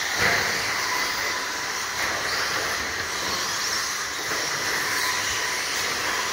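Several electric RC stadium trucks racing on a dirt track: a steady mix of high-pitched motor and gear whine rising and falling as they accelerate and brake, over a constant hiss of tyres and drivetrains.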